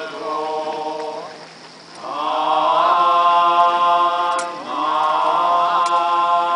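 Tendai Buddhist monks chanting a sutra together in long held notes. The chant eases to a breath pause about a second and a half in, then comes back louder with short sliding inflections.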